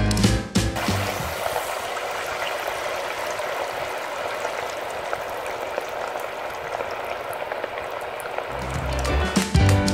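A slice of beef deep-frying in oil at 150 °C: a dense, steady sizzling crackle of bubbling oil. Music plays over the first second and comes back near the end.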